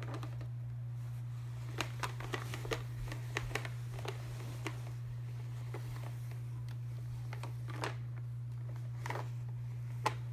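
Light clicks and knocks of plastic toys being handled and pushed on carpet by a toddler, a quick cluster about two to five seconds in and a few single ones later, the loudest near the end. A steady low hum runs underneath.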